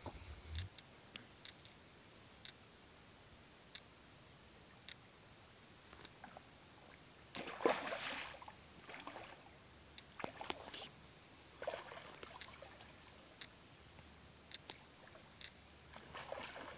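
A large hooked fish thrashing at the water's surface, with the loudest splash about eight seconds in and a few smaller splashes after it. Faint short clicks come and go throughout.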